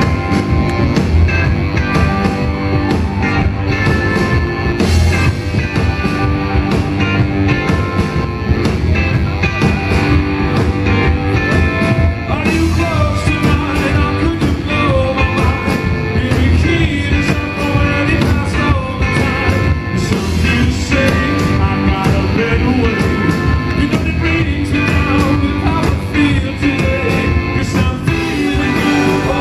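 Rock band playing live on electric guitars and keyboard, with a man singing lead over a steady beat.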